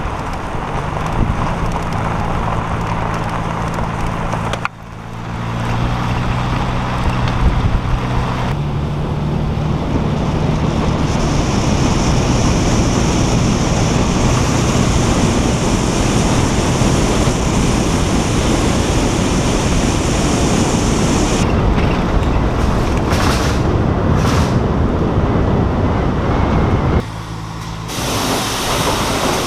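A vehicle driving on the road: a steady engine hum under road noise. The sound changes abruptly about five seconds in and again near the end.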